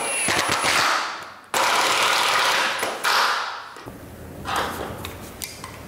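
Cordless drill-driver running in short bursts, driving screws through steel pocket-door hanger brackets into the door's solid walnut top lipping: three runs in the first four seconds. After that come quieter light clicks of metal hardware being handled.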